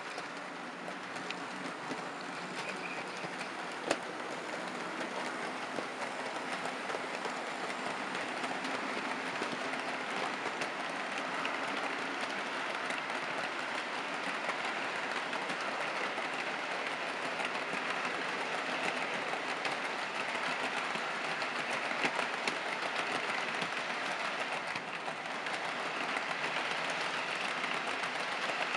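HO scale model freight train rolling along the layout track: a steady clatter of small metal wheels on rail, growing louder as the steel coil cars pass close by. A single sharp click about four seconds in.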